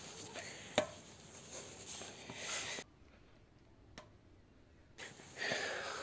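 Faint hard breathing with small knocks and a sharp click about a second in. It cuts to near silence for about two seconds in the middle, then the breathing returns.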